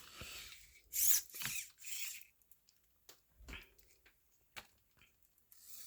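Small servo motors of a DeAgostini Robi robot whirring in three short bursts about a second in, as the robot walks, followed by a few faint clicks.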